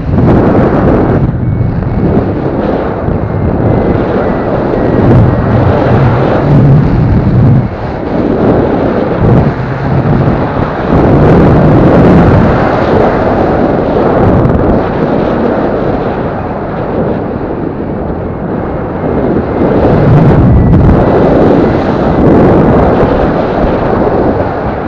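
Airflow buffeting the microphone of a paraglider's harness-mounted action camera in flight: a loud, continuous rushing rumble that swells and eases in gusts.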